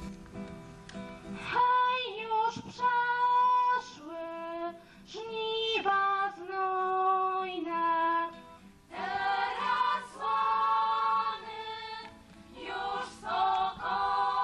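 A group of girls singing together in slow phrases of long held notes, with an acoustic guitar accompanying them.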